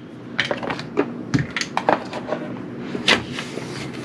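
White plastic parts of a LIFX Beam light kit (power plug and connector pieces) clicking and knocking as they are handled, with a dull thud about a second and a half in and a sharper click about three seconds in.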